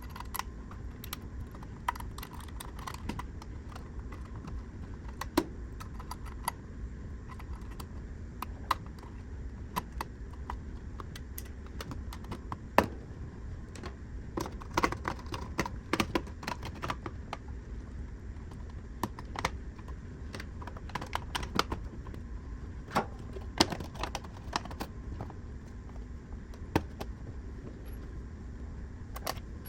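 Irregular clicks, taps and light rattles of small plastic and metal console parts, screws and hand tools being handled on a workbench while an Xbox Series S is put back together, over a steady low hum.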